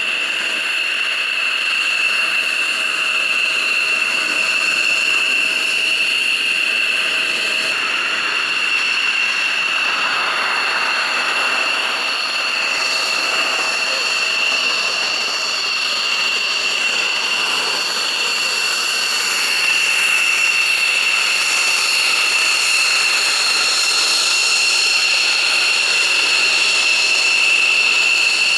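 Military jet engines running on the ground at idle: a steady, high-pitched whine with higher overtones over a broad rushing noise, growing a little louder about twenty seconds in.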